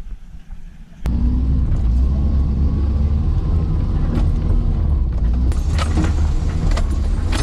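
Off-road vehicle engine running with a loud, steady low rumble that starts abruptly about a second in. From about five and a half seconds in it is joined by knocks and rattles.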